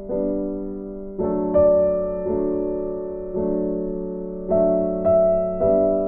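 Background music: slow, gentle piano chords, each struck and left to ring and fade before the next.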